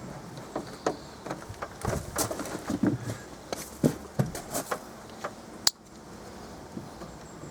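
Irregular clicks, taps and knocks of car door parts being handled and fitted back together by hand, with one sharp click near the end.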